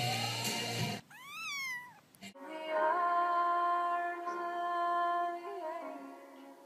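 A pop song with a woman singing cuts off about a second in. A cat then meows once, rising and falling, followed by a long, steady drawn-out call held for about four seconds, with a small wobble in pitch near the end.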